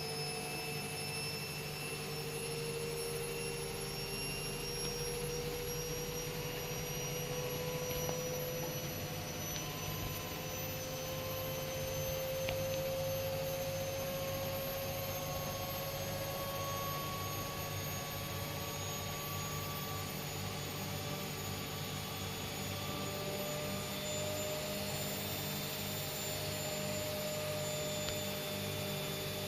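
Washing machine running: a steady hum with a motor whine that rises slowly and evenly in pitch.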